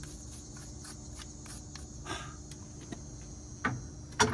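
Metal wire brush scrubbing brake dust off a car's rear brake parts, in quick strokes about three or four a second. It ends in a couple of sharp metal knocks, the loudest near the end.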